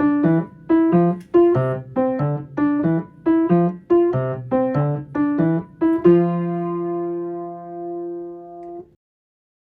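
Piano playing a short bouncy phrase of detached notes, about three a second, over a simple one-note-at-a-time bass, ending about six seconds in on a held chord that rings for about three seconds and then stops.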